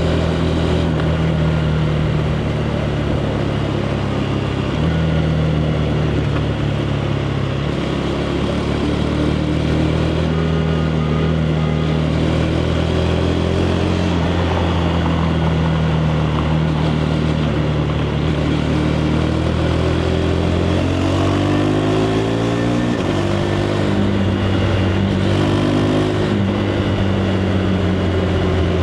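KTM 390 Adventure's single-cylinder engine heard through its stock exhaust, running at steady revs on the move. About three-quarters of the way through it accelerates with rising pitch, then drops suddenly at a gear change and settles to steady running again.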